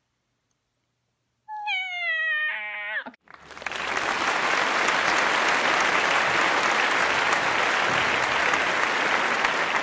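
Loud crowd applause that starts a little over three seconds in and keeps going, after a short high cry that glides in pitch.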